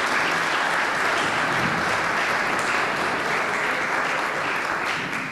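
Audience applauding in a large hall, fading out near the end.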